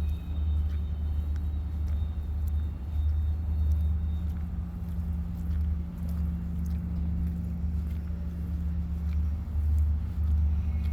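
Low, continuous rumble with a steady hum, swelling and easing every second or two, with faint high steady tones that fade out about four seconds in. It is an unexplained sound that seems like trains on a track, though no tracks or trains are around.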